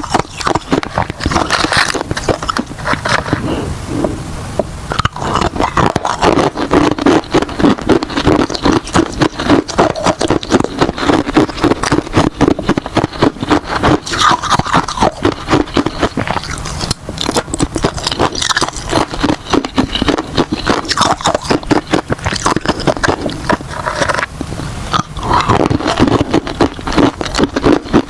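Ice being bitten and chewed right at the microphone: continuous loud crunching, many sharp cracks a second.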